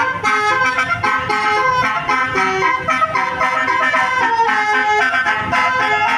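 A bus's multi-tone musical horn (a telolet-style horn) playing a tune, its held notes stepping quickly from pitch to pitch without a break.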